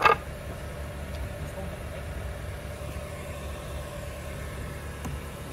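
Toyota Camry engine idling steadily, with a sharp knock of a wooden board set down on concrete right at the start.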